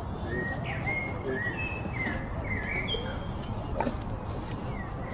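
Small birds chirping: a scatter of short, high chirps over a steady outdoor background hiss. A single brief knock comes near the end.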